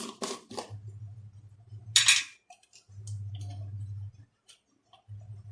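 Kitchen utensils being handled: light clinks and knocks of metal vessels and a cup, with one louder, sharper clatter about two seconds in.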